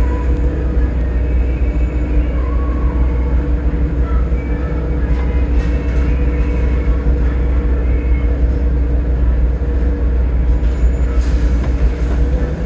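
Volvo B7TL double-decker bus running on the move, a steady engine drone under a heavy low rumble, with a few knocks and rattles from the body.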